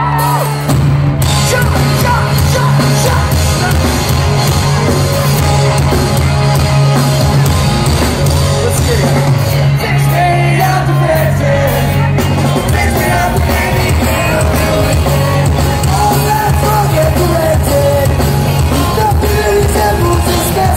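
Pop-punk band playing a song live and loud, the full band crashing in together about a second in, with singing over it.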